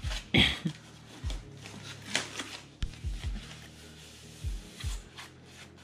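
White foam packing wrap rustling and crinkling in several short bouts as a metal pipe is pulled out of it, loudest about half a second in. Faint background music underneath.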